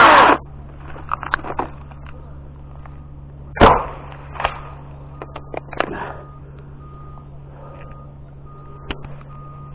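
A cordless chainsaw cuts off abruptly a moment in. Scattered knocks and clicks follow, with one loud thud about three and a half seconds in, over a steady low engine hum and faint short beeps repeating about every half second.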